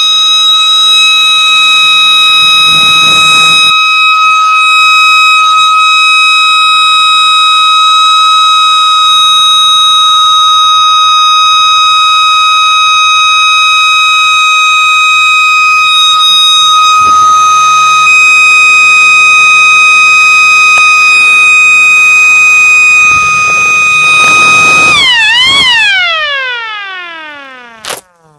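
Small electric air raid siren sounding a steady alert tone, extremely loud: it holds one high, steady pitch for about 25 seconds. Near the end the pitch dips and recovers once, then falls away as the siren winds down.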